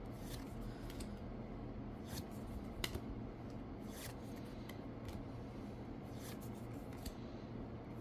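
Trading cards being slid one at a time off the front of a deck held in the hand: faint, short swishes and flicks about once a second, at uneven intervals, over a steady low hum.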